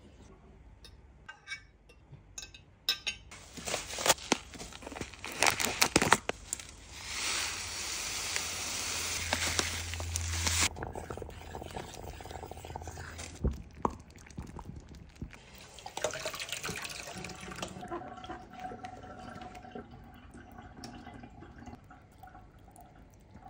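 Kitchen sounds of preparing soy milk: sharp clinks and clatters of utensils against a stainless steel pot, then a few seconds of steady rushing liquid that stops abruptly, followed by quieter stirring and straining sounds.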